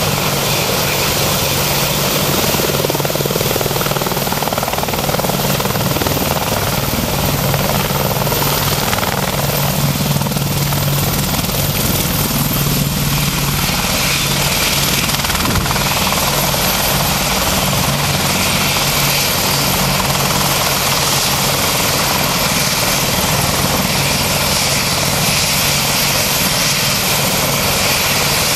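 AH-64D Apache Longbow helicopter running steadily, its twin turboshaft engines and rotor making a loud, even noise with a constant low hum and a thin high whine.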